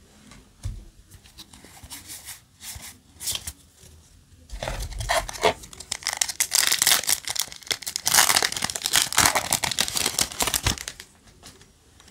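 Trading cards being handled with a few light clicks, then from about four and a half seconds in a foil Yu-Gi-Oh! booster pack being crinkled and torn open for about six seconds.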